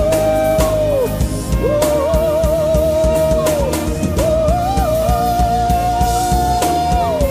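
Gospel worship music: a drum kit and bass under a lead line of three long held notes, each a couple of seconds, gliding in and wavering slightly.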